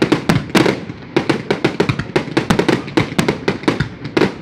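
Fireworks display: a rapid, irregular barrage of loud bangs and crackles, several a second, with no let-up.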